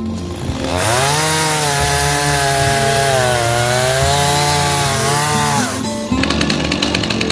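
A two-stroke chainsaw revved hard, its pitch sagging and recovering as it goes, over background music. It starts about a second in and cuts off suddenly near six seconds, after which guitar music carries on.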